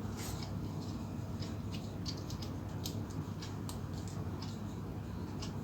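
Small irregular clicks and scratches of jumper wires and component legs being handled and pushed into a solderless breadboard, over a steady low hum.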